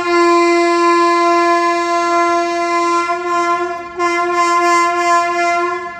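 WAP-7 electric locomotive's air horn sounding one long, steady, loud blast. The blast dips briefly about four seconds in, then carries on and stops near the end. It is a warning blast at a cow on the track.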